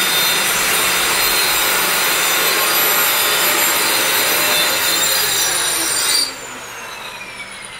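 Electric power tool running with a loud cutting noise and a steady high whine. About six seconds in it is switched off, and its whine falls in pitch as it spins down.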